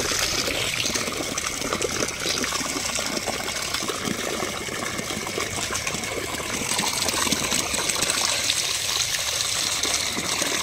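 Steady gush of water from a hose pouring into a plastic basin packed with small fish, with hands stirring and sloshing the fish through the water to rinse them.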